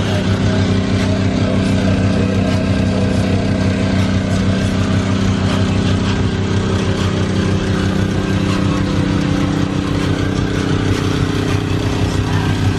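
Car engine idling steadily, an even low hum that holds the same pitch throughout.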